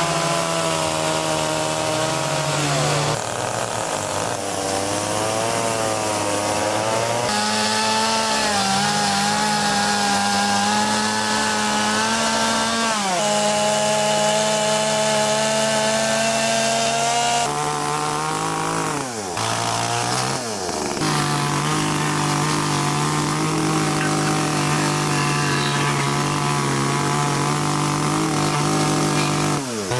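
Two-stroke chainsaw running at high revs as it cuts into wood, its engine pitch dipping and recovering as the chain bites. The pitch jumps abruptly several times.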